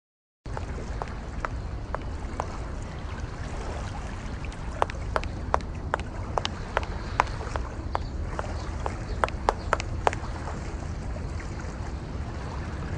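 High-heeled shoes clicking on a footbridge deck, about two to three steps a second, from about a second in until about ten seconds in. Under them runs a steady low background rumble.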